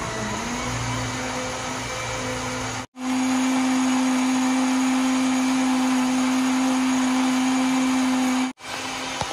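Electric countertop blender running, puréeing tomatoes into a smoothie: a steady motor whine, quieter at first and louder after a brief dropout about three seconds in, with another brief dropout near the end.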